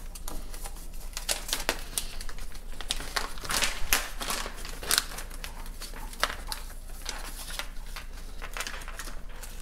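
A clear plastic vacuum-sealer bag crinkling and crackling in irregular bursts as it is handled, swung through the air and pulled open.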